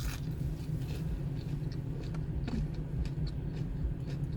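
Car engine idling: a steady low hum, with a few faint small clicks over it.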